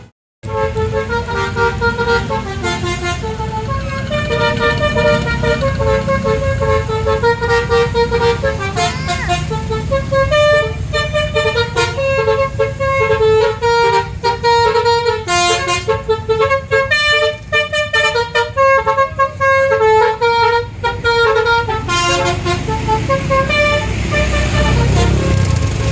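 Tour bus 'telolet basuri' multi-tone horn playing a tune of quick stepped notes, over the low running of the bus engine. The horn tune stops a few seconds before the end, leaving the engine.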